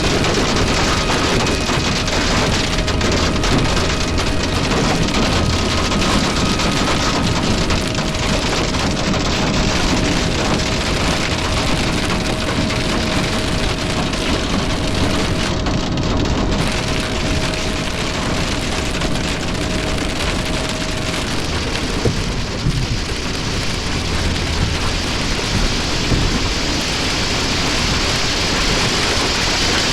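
Heavy thunderstorm rain coming down hard, a dense steady hiss, with a faint steady tone underneath that stops about two-thirds of the way through.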